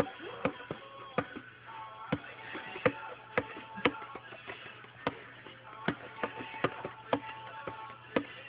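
Bongos slapped by a corgi's paws in an uneven, irregular rhythm, sharp single hits every half second to a second or so, over recorded music.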